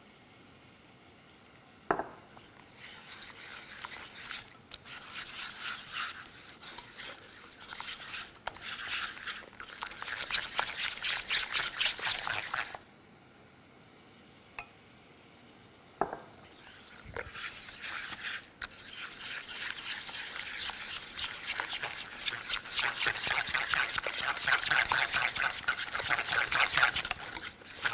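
Pecans in reducing maple syrup sizzling and crackling in a hot pan as they are stirred, the syrup boiling down to caramelize the nuts. A knock opens each of two long stretches, and the sizzling stops for about three seconds in the middle.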